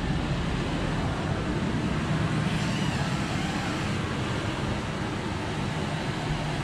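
1997 Ford Expedition's V8 engine idling steadily.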